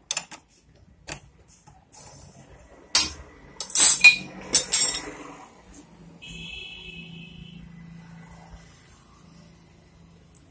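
Metal hand tools clinking and clanking during motorcycle engine work. There are a few light clicks, then a loud run of ringing metallic clatter about three to five seconds in. Near the middle comes a brief high-pitched tone lasting just over a second.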